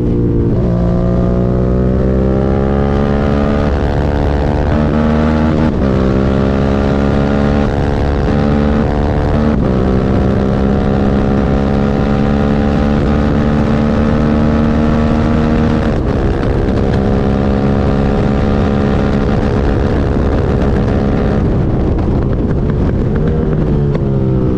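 Suzuki SV650 90-degree V-twin engine running under way, its pitch climbing slowly and then dropping abruptly several times, like gear changes, and falling near the end. The bike has a misfire.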